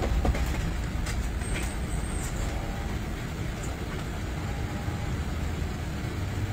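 Steady low road-and-engine rumble of a moving ambulance, heard from inside the patient compartment.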